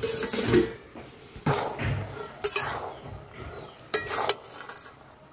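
Metal clanks and scrapes from a steel spatula and lid against a metal kadai as boiled yellow peas are stirred to check whether they are cooked. About four sharp clanks, the first ringing briefly.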